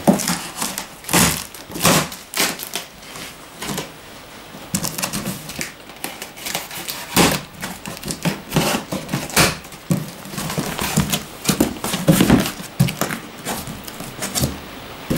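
Large cardboard shipping box being opened by hand: the taped top seam worked loose and the cardboard flaps pulled open, giving irregular scrapes, rustles and knocks.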